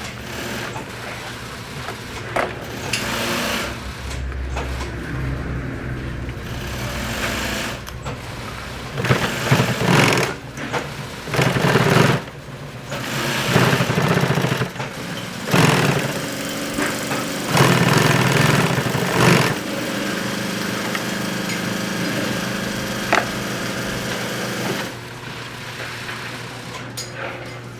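Sewing machine stitching in short runs of a second or two, stopping and starting, with a steadier stretch of running near the end.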